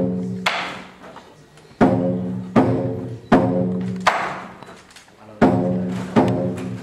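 Lion dance percussion: drum, gong and cymbals struck in a slow, spaced-out pattern, each strike ringing and fading over about a second, with a bright cymbal crash after some strikes.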